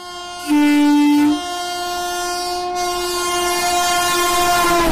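Approaching WAP-7 electric locomotive sounding a long horn that grows louder and drops in pitch near the end as it passes, giving way to the rumble of the train going by. A second, louder and lower horn blast sounds briefly about half a second in.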